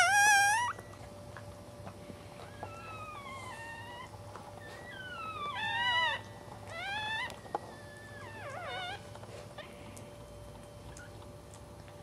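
Newborn Cairn terrier puppy crying: a loud, high squeal at the start, then four fainter cries that slide up and down in pitch.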